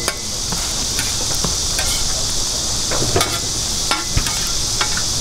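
Food sizzling on a hot flat griddle, a steady frying hiss, with scattered clicks and taps of metal cooking utensils.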